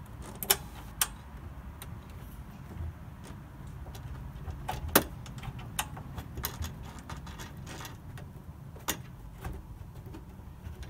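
Irregular small metallic clicks and ticks as a compression nut and olive on a copper pipe are handled and threaded by hand onto a fitting, over a low steady hum.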